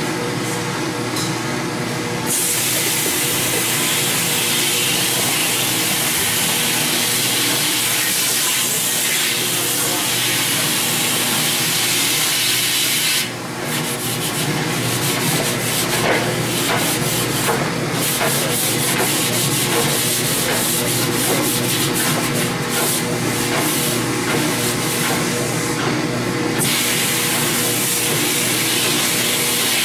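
Premix spray pump running with a steady hum while its hopper is flushed with water and scrubbed out by hand, the hiss of the flush rising and falling as the work goes on.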